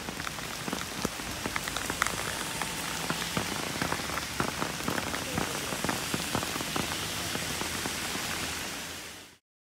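Steady rain falling, an even hiss with many separate drops ticking sharply close by; it fades out just before the end.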